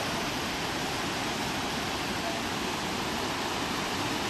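Flowing river water, a steady, even rush.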